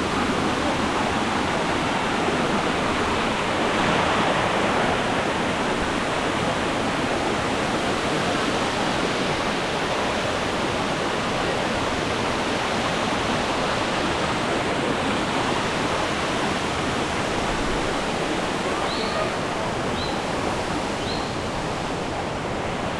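Waterfall rushing: a steady wash of falling water. Three short high chirps come near the end.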